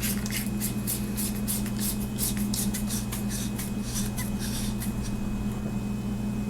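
Metal flashlight being reassembled by hand: AA batteries and the aluminium tube and tail cap clicking and scraping in quick succession as the tail cap is screwed back on, thinning out about halfway through. A steady low hum runs underneath.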